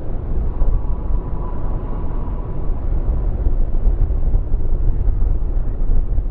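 Distant twin-engine jet airliner rolling out on the runway after landing: a steady low rumble, with a faint thin whine that fades about two seconds in. Gusty wind buffets the microphone under the engine noise.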